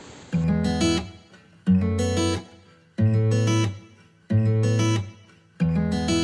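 Background music of strummed guitar chords: five chords about 1.3 seconds apart, each held for under a second, starting about a third of a second in.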